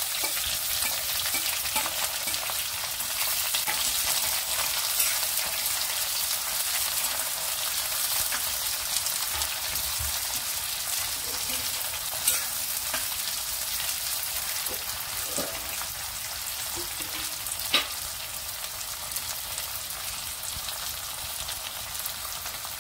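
Sliced onions sizzling in hot oil in a stainless-steel kadai, stirred with a metal spoon that clinks against the pan now and then. The sizzle slowly eases.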